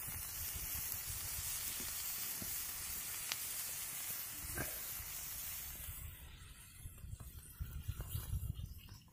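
Pot of food simmering on a wood fire, with a steady hiss and a couple of short crackles from the fire. About six seconds in the hiss fades, leaving an uneven low rumble.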